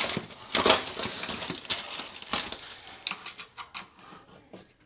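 Rapid metallic clicking and rattling of a steel oven door hinge being worked with pliers as its jammed latch is bent back into shape. The clicks are densest near the start and thin out toward the end.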